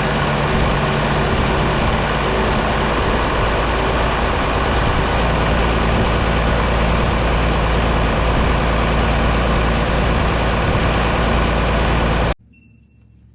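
Freshly overhauled John Deere 4840's six-cylinder turbo diesel engine running steadily at idle. The sound cuts off suddenly near the end.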